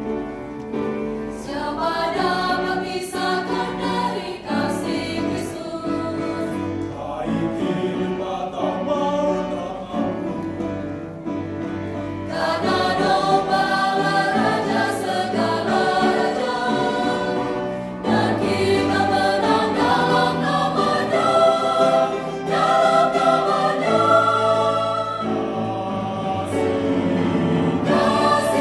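Mixed choir of women's and men's voices singing a Christian praise song, growing louder about halfway through.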